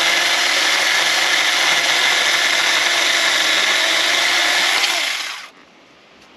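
Saker 4-inch mini cordless electric chainsaw cutting through a thick branch under load: a steady motor whine with the chain rasping through wood. The motor winds down and stops about five and a half seconds in as the cut goes through, followed by a few light knocks.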